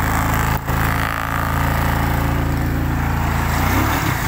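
Small motorcycle engine running steadily at close range.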